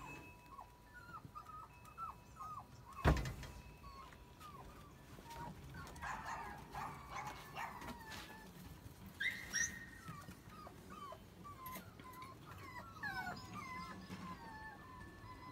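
Puppies whimpering and yipping in many short, high-pitched cries. A single sharp thump about three seconds in.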